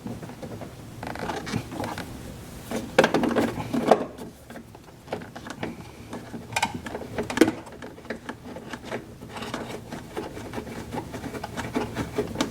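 Hand tools and metal and plastic engine-bay parts being handled during reassembly: scattered clicks, knocks and rubbing, a cluster of knocks a few seconds in, two sharper clicks mid-way, and a run of quick fine ticks near the end.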